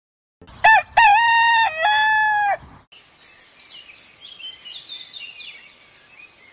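A rooster crows once, a loud call of about two seconds that steps down in pitch near its end. After it comes the quieter chirping of small birds.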